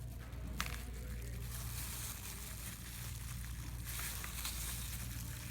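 Faint cutting into a pickle with a small blade: a sharp click about half a second in and a few light crunches later, over a steady low hum.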